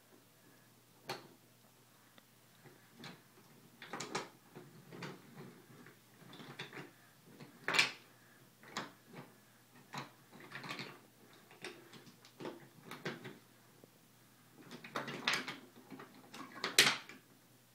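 Toy train set pieces being handled and moved about on a wooden-track train table: irregular clicks, knocks and clatter, loudest about eight seconds in and again near the end.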